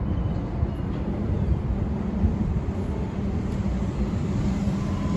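DART light rail train approaching: a steady low rumble with a faint hum.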